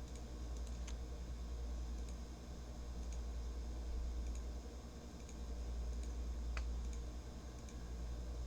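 Faint steady low hum with a few scattered faint clicks.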